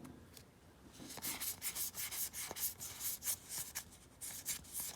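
Trading cards being handled, sliding and rubbing against each other in a series of short brushing strokes, several a second, starting about a second in.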